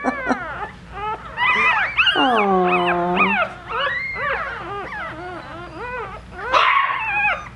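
One-week-old Coton de Tulear puppies squealing and whimpering in a string of short, high-pitched cries. About two seconds in, one longer cry slides down in pitch. There is a brief rustle near the end.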